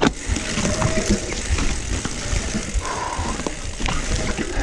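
Mountain bike rolling down a steep dirt trail, with tyre rumble and many small rattles and clicks. Two brief squeals come from the wet brakes, one about a second in and a higher one near three seconds.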